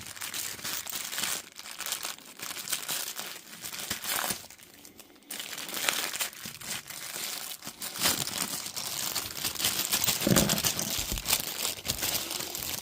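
Packaging for a new replacement part being torn open and crinkled by hand: irregular crackling and rustling, with a short pause about four and a half seconds in.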